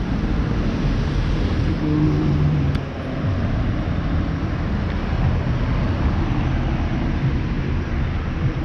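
Outdoor street ambience dominated by a steady low rumble of road traffic, with a brief engine tone passing about two seconds in.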